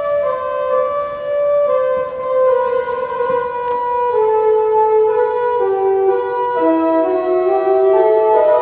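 Pipe organ playing slow, sustained chords, several voices held at once, the upper lines stepping downward note by note.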